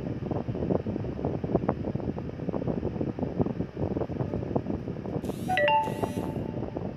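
A steady, crackly rush of background noise, broken about five seconds in by a short stepped phone notification chime, a Telegram message alert.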